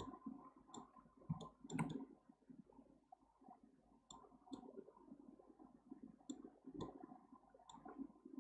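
Computer mouse clicking faintly as its middle button is pressed and released to orbit the view: about eight sharp clicks, several in quick pairs, over a faint low rustle of the mouse moving on the desk.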